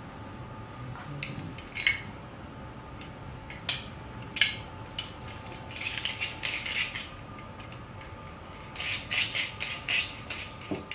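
Stainless steel rotary drum grater clinking and knocking on a wooden tabletop as it is handled, then rattling in quick runs of clicks while it is cranked, once around the middle and again near the end.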